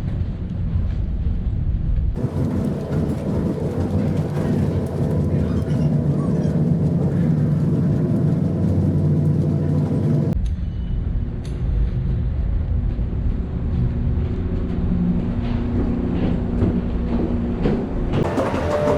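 Steady low machinery rumble and hum inside a ferry, with a few hum tones over it. The character of the noise changes abruptly three times as the shots change.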